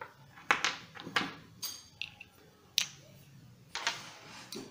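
Irregular clicks and taps as fibreglass discs and a small brass nut are handled and fitted together: about half a dozen sharp clicks, some followed by a short scraping rustle.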